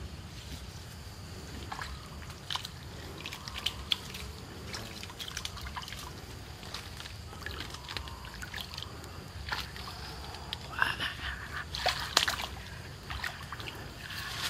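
Water splashing and sloshing in a shallow stream as a man wades through it, with scattered clicks and rustles; the splashing grows louder and busier near the end.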